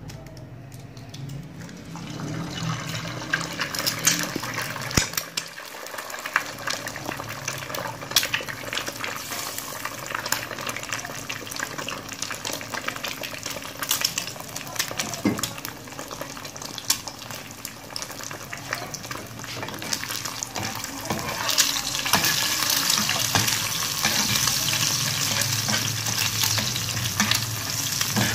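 Egg frying in hot oil in a nonstick pan, a steady sizzle with frequent crackles and pops that starts about two seconds in. From about twenty seconds in the sizzle gets louder as a spatula stirs and scrapes the egg around the pan.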